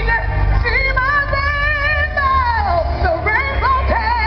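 A woman singing a gospel song live with band accompaniment and a steady low bass underneath. She holds a note for about a second and a half, slides down in pitch, then breaks into quick melismatic runs near the end.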